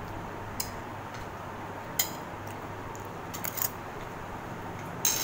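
Cutlery clinking against plates during a meal: a few separate sharp clinks, the loudest about two seconds in, a quick cluster a little after three seconds, and another near the end.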